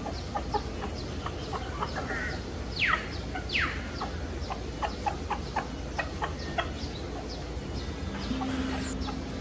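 Chickens clucking in a series of short calls, with two sharp calls that fall steeply in pitch about three seconds in.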